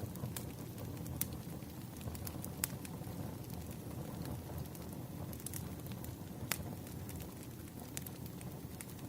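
Firewood burning: a steady low rumble of flames with scattered sharp crackles and pops, the loudest about a second in, again about two and a half seconds in, and about six and a half seconds in.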